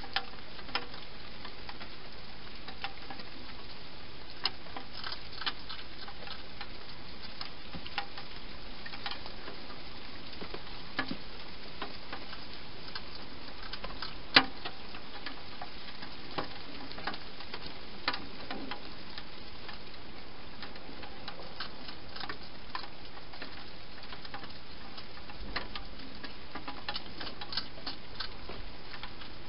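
Wild hedgehog eating dry food inside a plastic feeding box: irregular sharp clicks and crunches over a steady hiss, with one louder click about halfway through.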